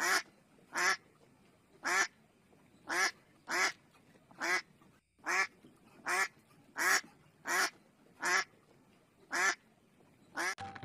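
A duck quacking over and over: about a dozen short, harsh quacks, roughly one a second.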